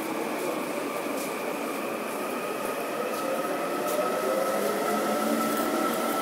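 Korail electric subway train pulling out of a station platform. Its traction motors whine in several tones that rise slowly in pitch as it gathers speed, over the steady running noise of the cars.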